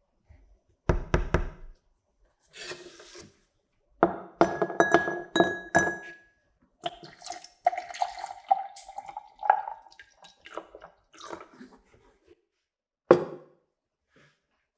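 Metal parts clinking and clattering as they are handled and set down in separate bursts, with a short hiss about two seconds in, a squeaky scraping tone in the middle, and one hard knock near the end.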